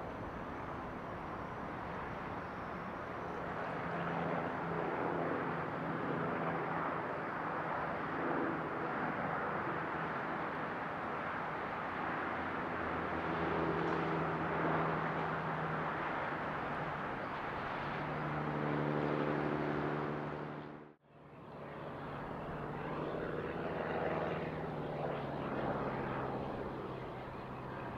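Propeller airplane's piston engine running, a steady drone with a low hum. About three quarters of the way through, the sound cuts out for a moment and returns at a slightly lower pitch.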